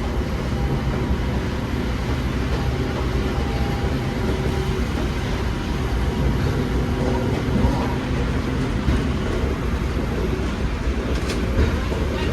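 Airport people-mover train running steadily, heard from inside the car: an even rumble of wheels and motors with a few faint steady tones.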